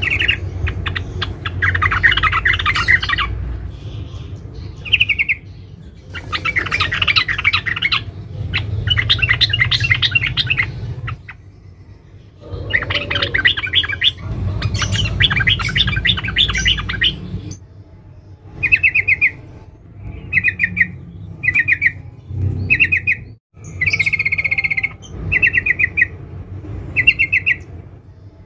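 Yellow-vented bulbul chattering in dense bursts of fast ticking notes, each burst two to three seconds long over a low rumble; from about two-thirds of the way in it switches to short trilled calls about once a second. It is offered as the close-packed 'ngeriwik' call of a female calling males.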